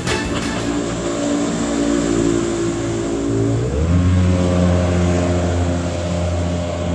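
Engine of an M2 2060 Super Sport aluminum jet boat running at speed across the water. About halfway through it revs up, its pitch rising, and then holds steady at the higher pitch.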